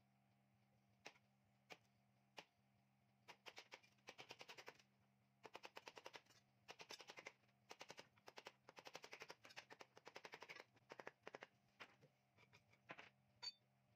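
Wood chisel driven into a hardwood timber block to break out the waste between saw kerfs: a few single sharp knocks, then quick runs of knocks, several a second, each run lasting about a second.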